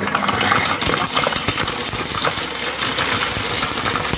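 Compact Cook Pro kitchen robot's blade spinning at top speed (speed 10), with hard chunks of parmesan rattling and knocking against the blade and bowl. It kicks in at full force at once, loud and busy with knocks throughout; the chunks are too big and hard for the blade to chop.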